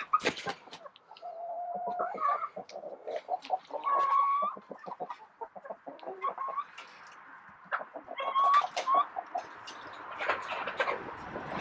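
Domestic chickens clucking, with several drawn-out pitched calls spread through the clucking.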